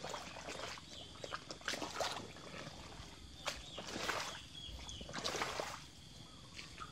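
Scattered small splashes and sloshes at the surface of shallow floodwater around a submerged termite mound, where fish are rising to feed on termites. There are several short splashes, the biggest about two, four and five and a half seconds in.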